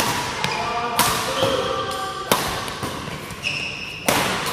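Badminton rackets striking a shuttlecock in a fast doubles rally: about four sharp hits, the loudest an overhead smash near the end. Short squeaks of court shoes on the floor come between the hits.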